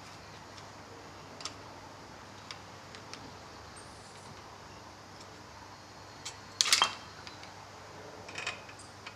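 Scattered light clicks and clinks of tools and parts being handled, with a louder brief clatter about two-thirds of the way in.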